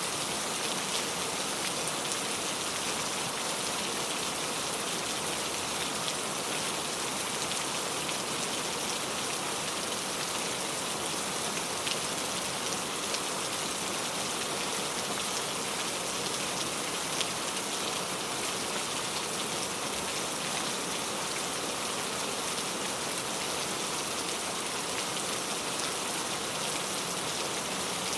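Steady rain, a dense even hiss of drops with a few sharper individual drop ticks.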